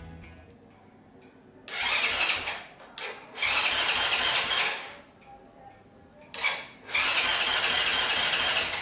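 Freshly rebuilt small single-cylinder four-stroke engine of a Honda Wave-type copy underbone motorcycle being cranked in several separate attempts, one to two seconds each with short pauses between, without catching into a steady idle.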